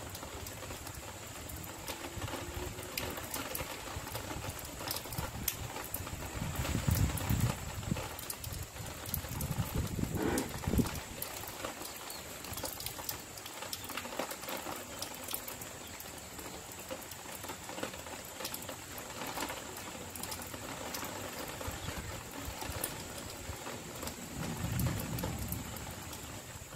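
Light rain almost stopped: a soft steady hiss with scattered drops ticking. A few low rumbles come and go, the loudest about ten seconds in.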